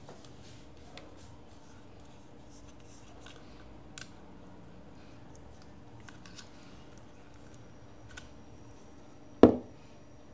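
Scattered faint clicks and taps from handling a portable speaker's small parts and tools while it is taken apart, with one sharp, loud knock near the end.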